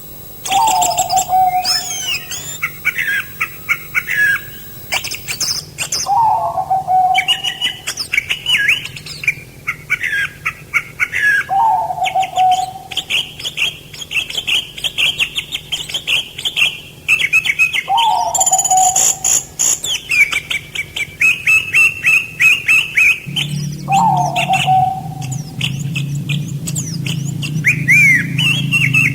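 Several songbirds chirping and warbling, mixed with a short falling lower call that repeats about every six seconds. A low steady hum comes in near the end.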